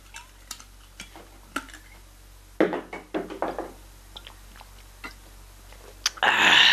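Light clicks and knocks of a glass whiskey bottle being handled, then a run of gulps as whiskey is swallowed straight from the bottle about three seconds in. Near the end comes a loud breathy exhale after the drink.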